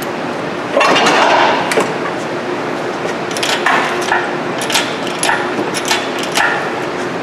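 Hand tools working on metal during engine removal: a loud, noisy burst about a second long near the start, then a string of sharp metallic clinks and taps, some of them ringing briefly.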